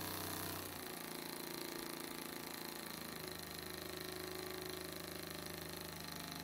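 Small homemade double-acting oscillating (wobbler) engine running fast and steady, a rapid even chatter from its piston and ports. Its speed shifts slightly about a second in and again around three seconds in.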